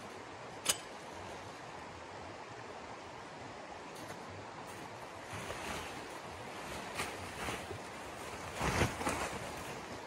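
Heavy tent fabric rustling and flapping as it is lifted and folded, in bursts from about halfway through, loudest near the end, over a steady rushing background; a single sharp click under a second in.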